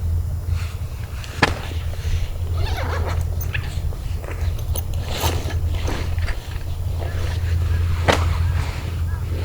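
Rain falling, with separate heavy drops hitting near the microphone over a steady low rumble; the two sharpest drops land about a second and a half in and near the end.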